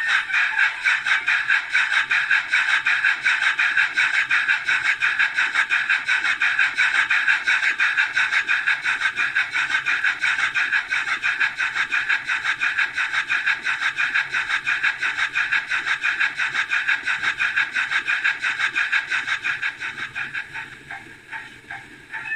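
Bachmann H2 Atlantic model locomotive's DCC sound decoder playing steam exhaust chuffs through its small onboard speaker, a quick, even beat that dies away over the last few seconds.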